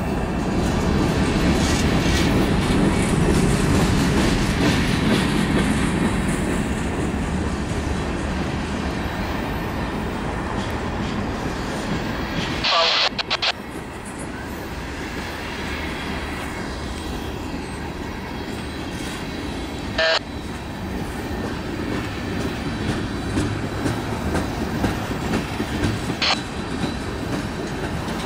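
An EMD SD40-2 diesel locomotive rumbling past, then a string of freight cars rolling by with steady wheel-on-rail clatter. A few brief sharp noises rise above the clatter, with quicker clicks of wheels over rail joints near the end.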